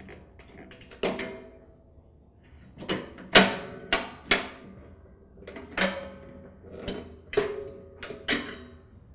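Metal battery cradle strap on a lawn tractor clanking against the sheet-metal frame as it is worked loose and pulled out: a string of irregular sharp knocks, several with a brief metallic ring.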